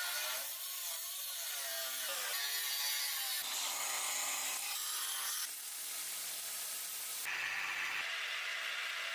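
Metalworking tool noise in a series of short cuts: scraping, sawing-like rasping and grinding against steel, changing abruptly every second or two.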